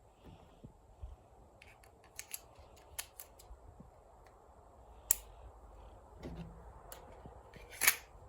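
Parts of a Glock 44 pistol clicking and snapping together as it is reassembled: a scattering of sharp clicks, the loudest about five seconds in and near the end.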